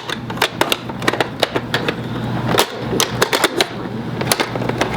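Hard plastic toy parts clicking and tapping as doll car seats are pushed into a plastic toy car: a quick, irregular run of sharp clicks.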